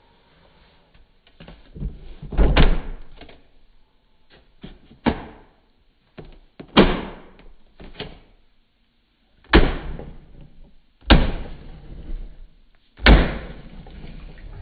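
A series of loud, sharp knocks or clunks, about six of them a second or two apart, with softer rattles and clicks of handling in between.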